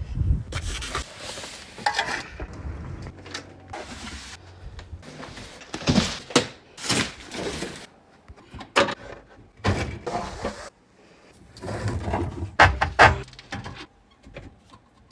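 Irregular knocks, clunks and scrapes of hands-on installation work, with a few short stretches of rougher scraping or whirring.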